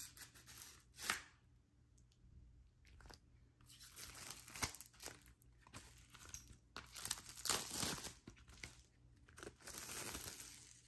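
Packaging of a vinyl LP being torn open and crinkled by hand, in several separate bursts of tearing and rustling.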